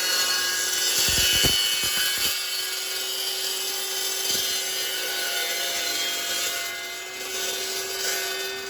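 Power saw with a carbide-tipped circular blade cutting steel: a steady whine from the spinning blade over a loud hiss, with a few knocks in the first two seconds. After about two seconds the knocks stop and the hiss eases while the whine carries on.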